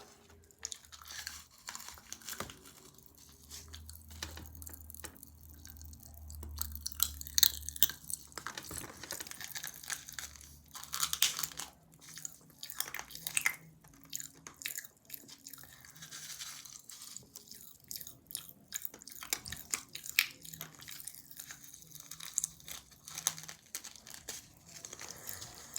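A person chewing and crunching candy, with many irregular sharp clicks and crackles throughout.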